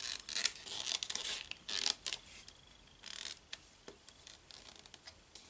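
Paper band on a hardback notebook rustling and scraping as fingers tug and slide at it. Short rasps come in quick succession over the first two seconds, then another about three seconds in, with a few faint ticks after.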